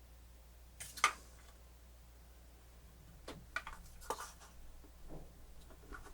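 A sharp click about a second in, then a cluster of lighter clicks and taps: small plastic parts and tools being handled while a cassette player is taken apart.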